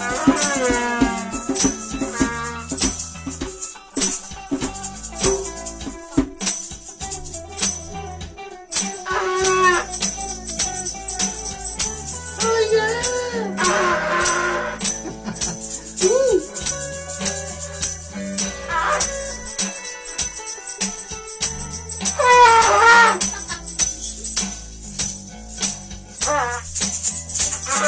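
Informal group music: rattles shaken in a steady, dense rhythm over low drum thuds, with a wavering melody that slides up and down in pitch coming and going on top.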